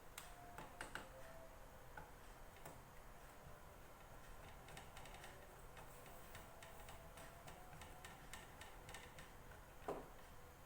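Faint, scattered light clicks and ticks of small parts of a plastic bag sealer being handled while a replacement heating element is fitted, with one slightly louder knock near the end.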